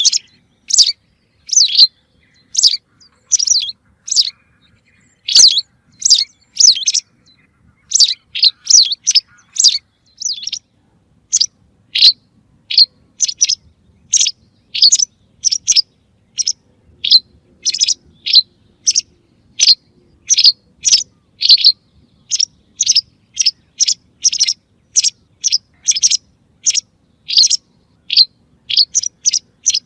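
Recorded white wagtail calls played back as a hunting lure: short, sharp chirps, often in pairs, repeated about one to two times a second with brief pauses.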